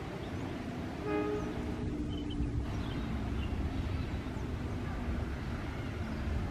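Steady low rumble of an approaching diesel-hauled train still some way off, with a brief pitched tone about a second in.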